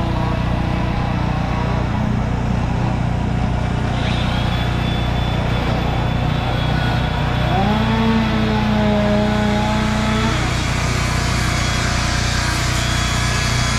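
Carving power tools running: a steady engine drone from chainsaws throughout, with a high-pitched whine from a handheld grinder starting about four seconds in. Near the middle a motor rises in pitch, holds for a few seconds and drops away.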